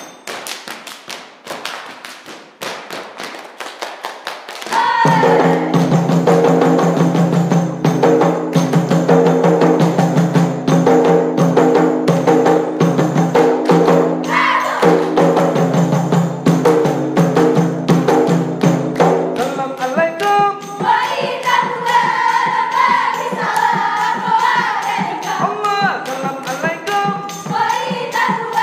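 Ratoh Jaroe body percussion: many hands clapping and slapping together in a fast rhythm, with a rapa'i frame drum. From about five seconds in, loud unison singing comes in over the clapping, and the melody moves higher from about twenty seconds in.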